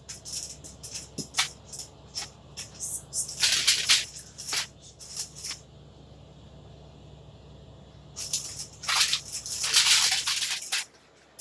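Handling noise as small items are pushed into a fish: two spells of rustling and crinkling with a few sharp clicks, the first starting about a second in and the second near the end, over a low steady hum.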